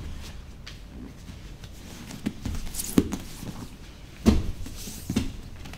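Two grapplers rolling on a padded training mat: dull thumps of bodies landing on the mat, the loudest about three and four seconds in, with scuffing between them.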